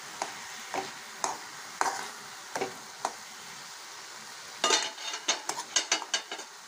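Steel spoon stirring and scraping grated carrot in a metal pan over a steady sizzle, as the milk in the carrot halwa cooks down. Single scrapes come about every half second at first, then a quick run of louder scrapes near the end.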